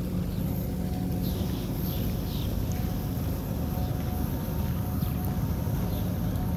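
Steady low machinery hum of a moored ship, with a few faint high chirps about a second in.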